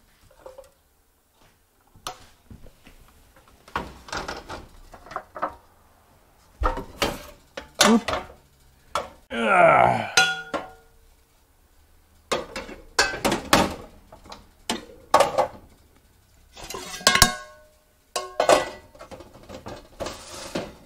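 Metal baking pans clanking and clattering as they are handled and set down. About ten seconds in, one clatters loudly and rings briefly.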